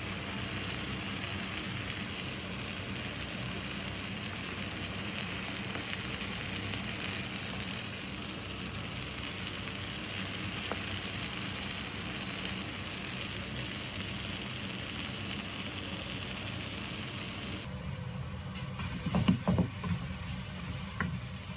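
Udon noodles and sauce sizzling steadily in a hot skillet or wok during the stir-fry. About 18 s in the sound changes abruptly, and a few louder, uneven noises come near the end.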